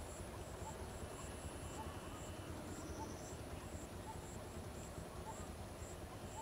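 Tropical roadside ambience: insects chirping, with a faint steady high whine and a regular high chirp about twice a second, over a low background rumble.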